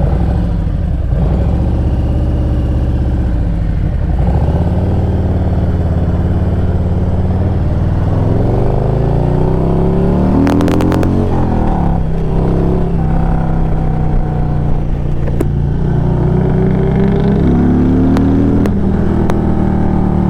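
Harley-Davidson Road Glide's V-twin engine running while riding; about halfway through the revs climb for a few seconds, then drop sharply and settle into a steady cruise.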